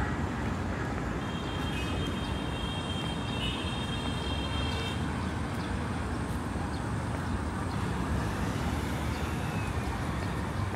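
Steady road traffic noise, a continuous low rumble. About a second in, a faint high whine joins it for a few seconds.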